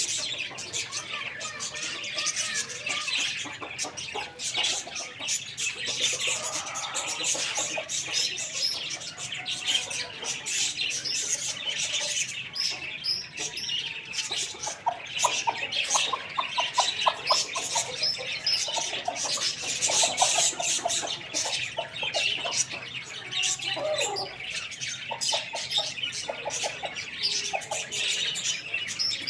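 Many small birds chirping and twittering continuously in a dense chorus, with wing flutters and occasional short, lower squawking calls.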